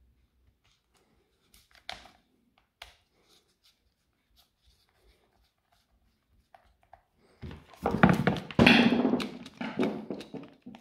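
Faint scattered clicks as a screwdriver turns the brush-cap screws of a Hitachi angle grinder. About seven and a half seconds in comes a loud, uneven stretch of knocking and rattling, lasting about three seconds, as the grinder with its wire cup brush is handled.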